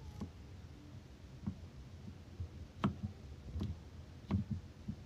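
Kitchen knife slicing onion on a cutting board: irregular soft knocks of the blade meeting the board, with a few louder ones in the second half.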